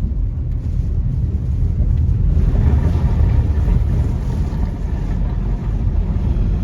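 Car driving on a flooded, storm-swept road: a heavy low rumble with wind buffeting, and a rushing hiss that swells for a couple of seconds in the middle.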